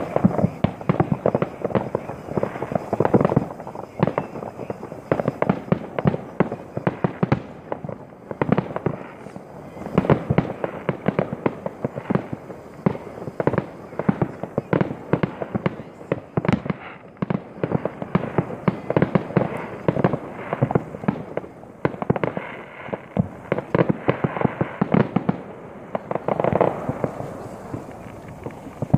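Many fireworks going off across a city: a dense, continuous barrage of bangs and crackling pops, several every second, with no real pause.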